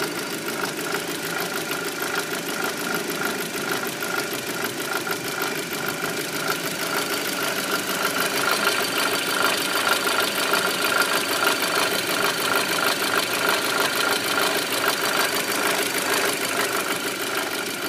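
Audi A4 B7 engine running with a fast, even ticking clatter over its steady running sound, growing a little louder about halfway through.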